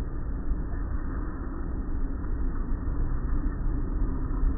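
Automatic car wash brushes and hanging cloth strips scrubbing over the car and its windows, with spraying water and a steady low machinery hum, heard from inside the car.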